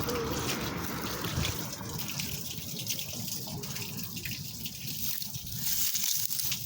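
Water trickling and dripping out of a partly cleared drain pipe, with many small scattered drips. The flow is fuller for about the first two seconds, then thins.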